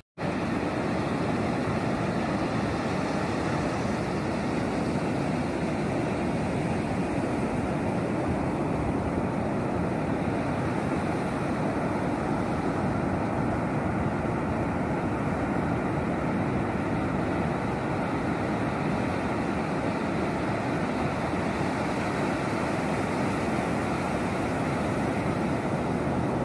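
Steady roar of ocean surf breaking on the beach, mixed with wind noise.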